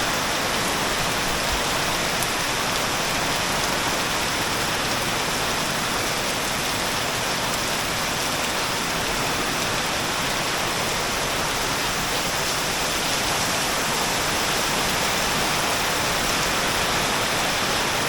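Torrential tropical downpour, heavy rain hammering steadily on the ground, roof and pool surface in a dense, even roar.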